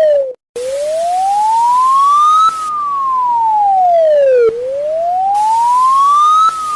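Emergency alarm siren wailing: a single loud tone rises for about two seconds and falls for two, over and over. It cuts out for a moment about half a second in, then starts its rise again.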